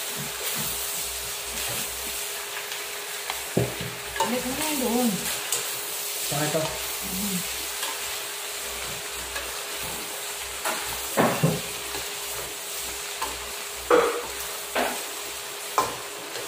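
Chopped pork sisig sizzling in a stainless steel wok while being stirred and tossed with a wooden spatula. The spatula scrapes and knocks against the pan every few seconds, more often in the second half.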